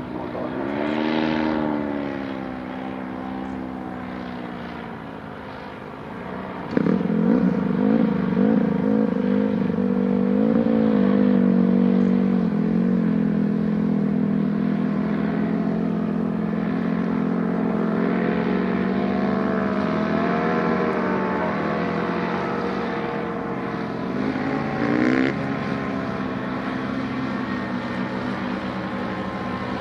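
Paramotor's backpack engine and propeller running as the powered paraglider flies by, the pitch dipping and then rising in the first two seconds. About seven seconds in it turns suddenly louder and then holds steady with a slight wavering in pitch, with a brief rise in pitch near the end.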